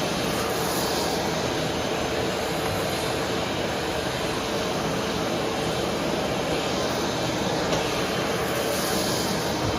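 Vacuum cleaner running steadily: a continuous rushing airflow noise with a steady motor hum.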